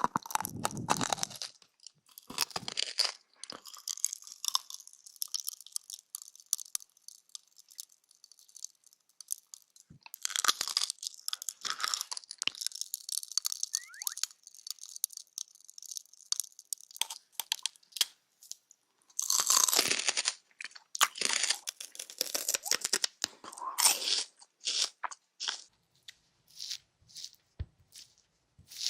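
Close-miked ASMR crunching and crackling in irregular bursts with short pauses between them, mostly sharp and high-pitched.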